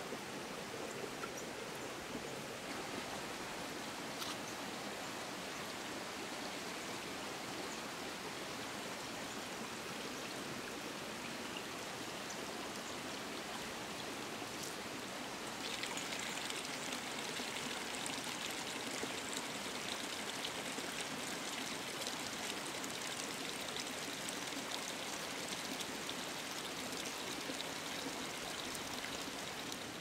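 Steady rushing of a stream running through the forest, growing brighter and a little louder about halfway through.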